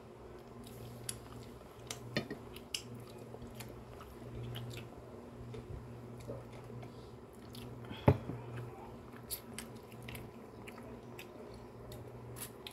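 People eating fish stew by hand and spoon: quiet chewing and mouth sounds with scattered small clicks, and one sharper knock about eight seconds in, over a low steady hum.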